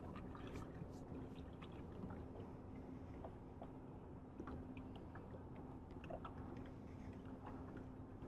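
A small motor on a fishing boat humming steadily at one constant low pitch, with water lapping and small ticks and splashes against the hull.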